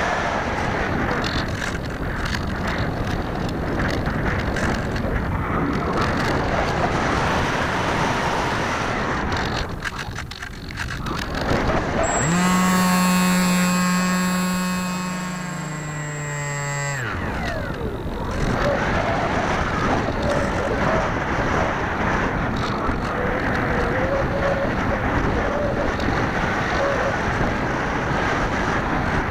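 Onboard sound of a small electric RC plane in flight: a steady rush of air over the camera mixed with the noise of its 2826 brushless outrunner motor and 6x4 pusher propeller. About twelve seconds in, a pitched motor-and-propeller hum with a thin high electronic whine takes over for about five seconds, sliding slightly lower before the broad rush returns.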